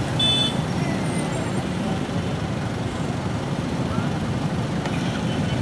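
Scania K410 double-decker bus's six-cylinder diesel engine running steadily as the bus moves slowly.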